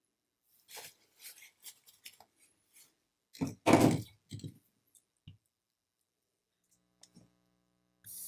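Lithium-ion cell pack being handled and set down on a bench: a run of small clicks and knocks, with one heavier knock about three and a half seconds in. Near the end a soldering gun is switched on and hums steadily, with a hiss starting just at the close.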